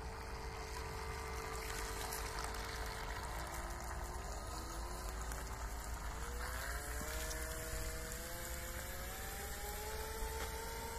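Electric motor and propeller of a small FT007 RC speedboat whining, holding one pitch at first, then climbing steadily in pitch from about three seconds in as the boat speeds up. A steady rushing noise runs underneath.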